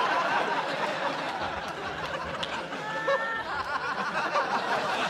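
Studio audience laughing at a punchline, many voices at once with scattered individual laughs, swelling again near the end.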